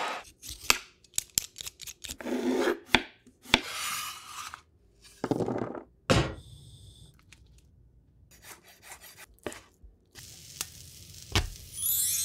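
A rapid run of kitchen food-prep sounds: sharp knocks and chopping strokes on a cutting board, with short bursts of scraping and rustling between them.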